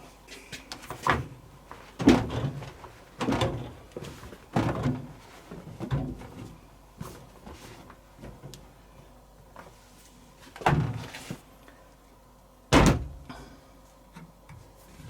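A series of knocks and clunks from the Zanussi TD162 compact tumble dryer being handled, about seven in all, spaced irregularly; the loudest, a sharp slam like its door being shut, comes about two seconds before the end.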